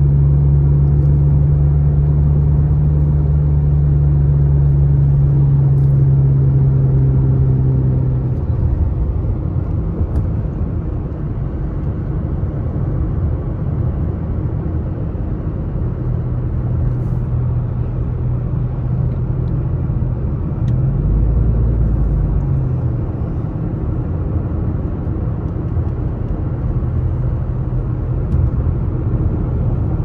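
Car road noise while driving: a steady engine drone for the first eight seconds or so, then mainly low tyre and road rumble, with a brief louder rumble a little past twenty seconds.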